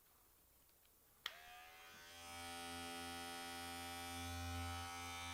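Omorc cordless-style electric dog clippers, blade guard fitted, switched on with a click about a second in. The motor spins up and then runs with a steady, fairly quiet buzzing hum.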